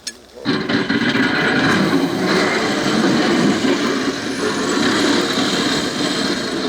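A motor running loud and steady, cutting in abruptly about half a second in.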